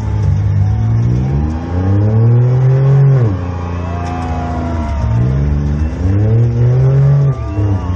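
Demolition derby car's engine, heard from inside the car, revved hard twice: each time the pitch climbs for two to three seconds, then drops sharply as the throttle is lifted.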